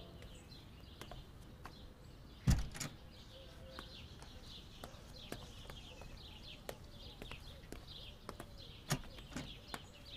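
A door bangs shut about two and a half seconds in, then high heels click on a stone floor at a walking pace. Faint birds chirp throughout.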